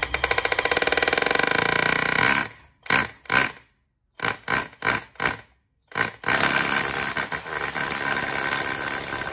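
Bosch GBH 18V-26 D cordless brushless rotary hammer hammer-drilling a masonry bit into a reddish clay slab. It starts with a steady run of rapid hammer blows, then gives a series of short trigger bursts, then another steady run that stops suddenly at the end.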